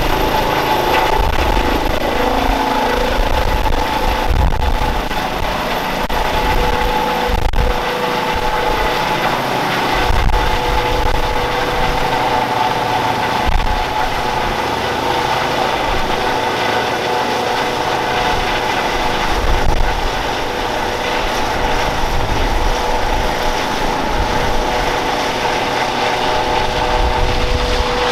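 Airbus H135 P3 helicopter lifting off and climbing overhead, its twin Pratt & Whitney PW206B3 turboshaft engines and rotors at take-off power: a steady turbine whine with two held tones over a constant rushing noise, with a gusty low rumble underneath.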